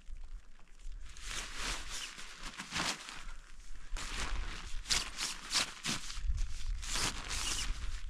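Nylon tent flysheet rustling and crinkling in irregular bursts as it is pulled and spread out on the ground, over a steady low rumble of wind on the microphone.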